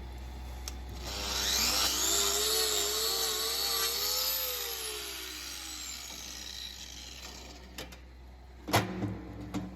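A handheld electric power tool, such as a hoof-trimming grinder, spins up about a second in, runs with a wavering pitch, then winds down. A sharp knock comes near the end.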